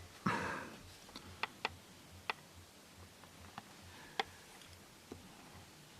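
Scattered light clicks and taps, about seven of them at uneven intervals, after a short soft rustle, over a faint low pulsing hum.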